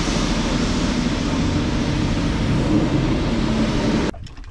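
Steady mechanical roar with a low hum from grain elevator machinery running. It cuts off suddenly near the end.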